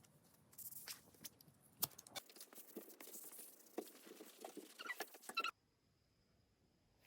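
A quick run of light taps, clicks and scratches from small hard objects being handled, for about five seconds; it stops abruptly, leaving only faint hiss.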